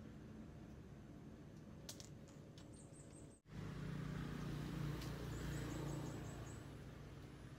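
Faint outdoor background: a low steady hum, with faint clicks and, a little past the middle, a short run of about six high, quick chirps. The sound drops out for an instant about halfway through, then the hum comes back a little louder.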